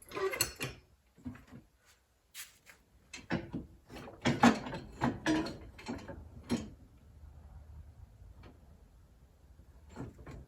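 Metal clunks and knocks as a new riding-mower pivot axle with its bushings is worked against the mower's front frame, a few in the first second and a busy run of them from about three to six and a half seconds in. The axle and bushings are too wide to go into place.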